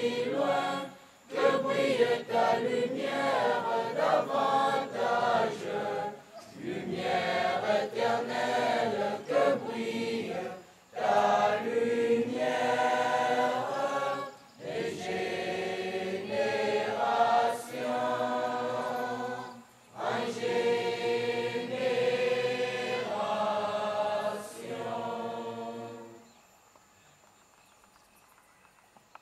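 Large group of students singing a school song together in French, phrase by phrase with short pauses between. The song ends about three seconds before the end, leaving near quiet.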